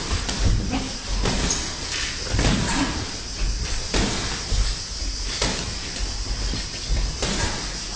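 Boxing gloves landing in a string of irregular thuds and smacks during sparring, punches hitting gloves, guard and body.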